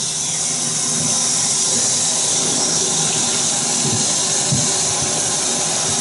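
Water tap running steadily into a stainless steel sink, splashing as a ceramic whetstone is wetted under it.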